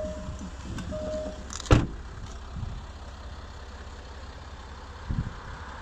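A Range Rover Sport's door-open warning chime pinging about once a second, then the driver's door shut with one solid thump just under two seconds in, after which the chime stops. A low steady rumble runs underneath, with a couple of softer thumps near the end.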